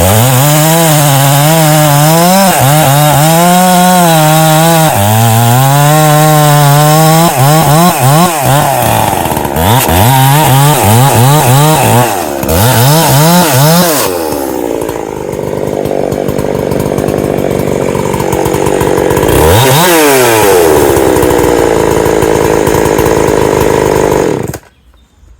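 Ported Husqvarna 365 Special two-stroke chainsaw cutting through wood under load, its engine pitch dropping and recovering again and again as the chain bites. It is described as grunting down through the wood when buried deep. The sound cuts off abruptly near the end.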